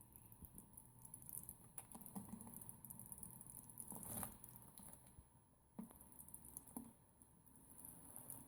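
Small bird bathing in shallow water: faint, quick patter of splashes and droplets, with the biggest flurry about four seconds in and single splashes near six and seven seconds.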